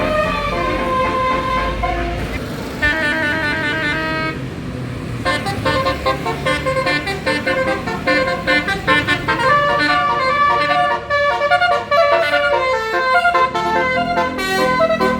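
Multi-tone 'telolet' bus horn playing rapid warbling note patterns and short melodies over the low running of the bus. A fast two-note trill comes about three seconds in, then a string of quickly changing notes from about five seconds on.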